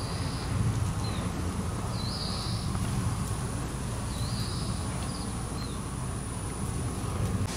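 Outdoor ambience: a steady low rumble, with a short high chirp about every two seconds and a faint steady high whine.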